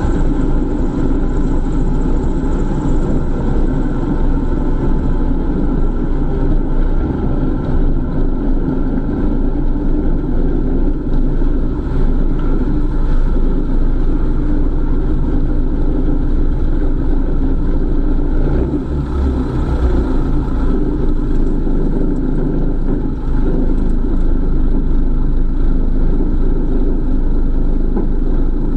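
Single-engine light aircraft's piston engine and propeller running steadily at low taxi power, heard from inside the cockpit.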